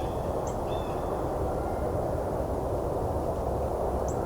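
Red-breasted nuthatch giving a faint nasal call note once, under a second in, with a couple of brief, very high chips. Throughout there is a steady low background rumble.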